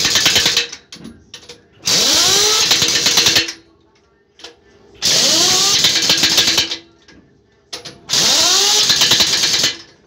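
Impact wrench running on a truck wheel's lug nuts in repeated bursts of about one and a half to two seconds, roughly every three seconds. Each burst rises in pitch as the wrench spins up, then rattles steadily over a hiss, typical of nuts being run down and tightened as the wheel goes back on.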